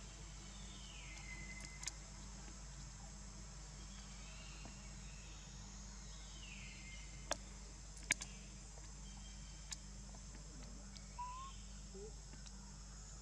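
Steady high insect drone. Over it come about three faint whistle-like calls that fall in pitch and then level off, and a few sharp clicks.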